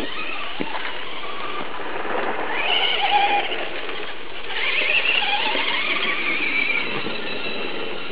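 Electric motors and gear drives of Traxxas Stampede RC monster trucks whining at speed, rising and falling in pitch as the trucks accelerate and back off. The whine swells twice, about three seconds in and again around five seconds in, over a steady hiss.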